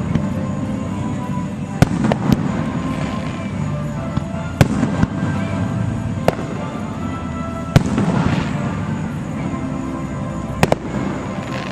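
Aerial firework shells bursting with sharp bangs, about seven of them a second or more apart, two in quick succession near the end. Music plays steadily underneath.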